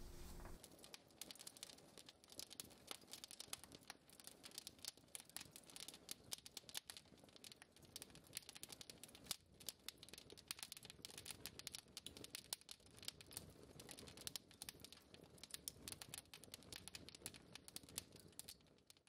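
Wood fire crackling in a fireplace: a faint, dense, irregular run of small pops and snaps.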